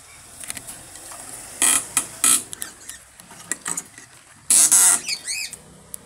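Rustling of a mesh cloth cage cover rubbing against the phone in several loud bursts, followed about five seconds in by three or four quick bird chirps.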